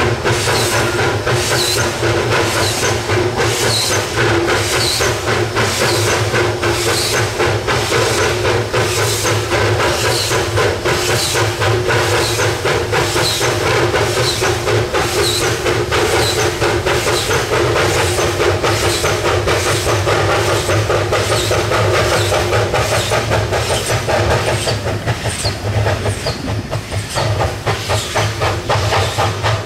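Narrow-gauge Hudswell Clarke steam locomotive working hard, its exhaust beating in a fast, steady rhythm with hissing steam. The beats falter briefly near the end, then pick up again.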